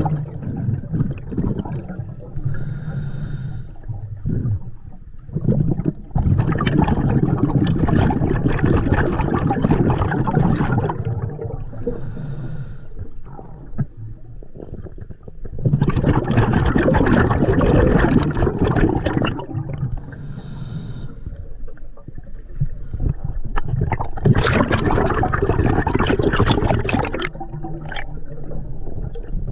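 Scuba diver breathing through an open-circuit sidemount regulator underwater: three breaths, each a short hiss of inhalation through the regulator followed by a long rush of exhaled bubbles.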